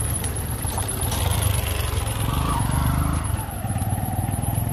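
Vehicle engine idling: a steady low rumble, with faint background voices.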